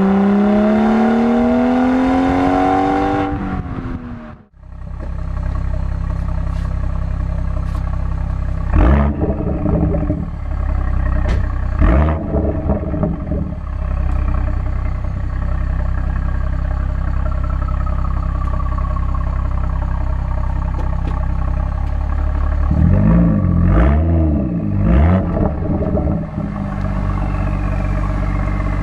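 BMW 440i's B58 turbocharged 3.0-litre inline-six with the M Performance Power and Sound Kit exhaust, revving up over the first few seconds, then idling with two short throttle blips and, near the end, a longer rev up and back down. The sound drops out briefly about four seconds in.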